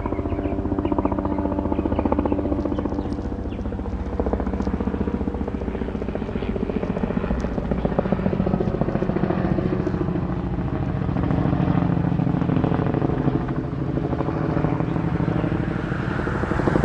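Helicopter flying overhead, its rotor blades making a steady, rapid chop over the hum of its engine.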